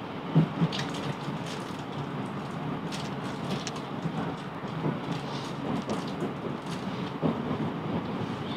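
Class 707 Desiro electric train running on the track: a steady rumble broken by irregular clicks and knocks from the wheels over the rails.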